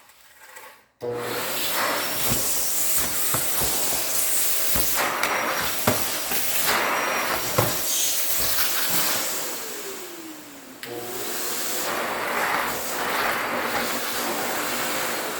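Hoover Hushtone backpack vacuum switched on about a second in and running with a steady suction rush and high whine, with a few knocks from the hose and wand. Around two-thirds of the way in the motor slows, then comes back up, and it fades toward the end. It is running again after its melted switch and faulty high/low PC board were replaced.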